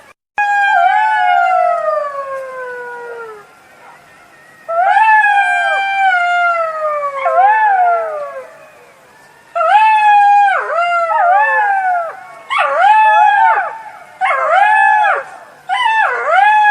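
Jackals howling: two long wailing calls that slide down in pitch, then a run of shorter calls that rise and fall, about one a second.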